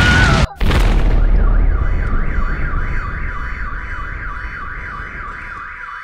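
Explosion: a loud blast breaks off briefly and a second blast follows about half a second in, its noise dying away over several seconds. From about a second and a half in, an electronic alarm wails, sweeping up and down about three times a second over a steady tone.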